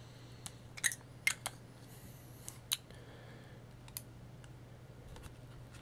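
A handful of small, sharp clicks from fountain pen caps and barrels being handled and the caps posted onto the pen ends, the loudest about a second in, over a faint steady low hum.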